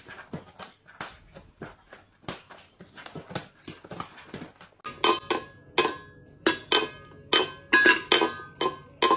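A cat scratching and tapping at a cardboard box: faint, irregular scratchy taps. About five seconds in, a cat's paw batting an empty stainless steel food bowl on the floor starts, giving louder, repeated metallic clanks with a short ring, two or three a second.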